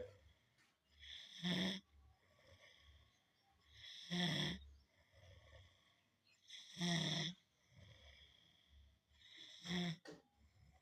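A sleeper snoring loudly in a steady rhythm, four big snores about three seconds apart, with quieter breaths in between.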